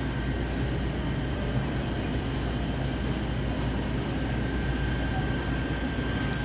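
Steady low hum of a supermarket's refrigerated display cases and ventilation, with a faint high whine running through it.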